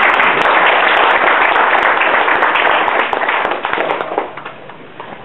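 Audience applause: many hands clapping, dying away about four seconds in.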